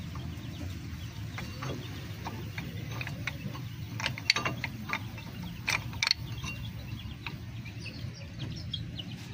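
Metal clicks and knocks of a new brake pad being pushed and worked into a disc brake caliper by hand, with a few sharper clicks about four and six seconds in.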